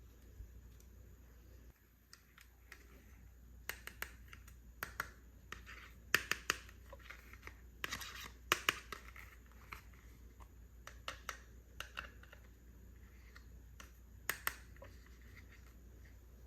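Small toy furniture pieces and their packaging being handled: irregular light clicks, taps and scratchy rustles, busiest in the middle and tapering off near the end.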